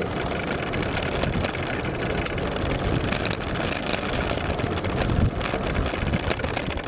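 Outboard motor of a small aluminium fishing boat running steadily under way.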